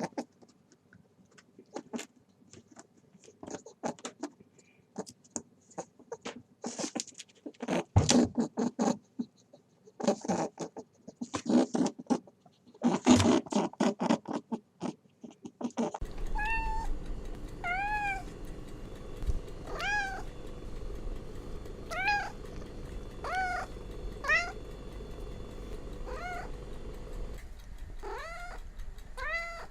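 A cat meowing repeatedly in short calls that rise and fall, roughly one a second, in the second half. Before that, irregular bursts of clicking and crackling noise.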